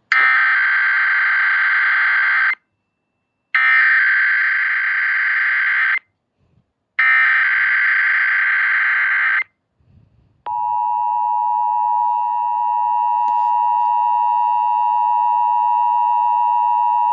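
Emergency Alert System SAME header: three harsh bursts of digital data tones, each about two and a half seconds long with short gaps between. About ten seconds in the steady two-tone EAS attention signal (853 and 960 Hz) starts and holds.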